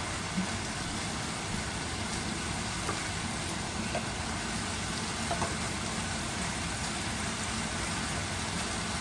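Chicken breast frying in a pan: a steady sizzle, with a few faint ticks here and there.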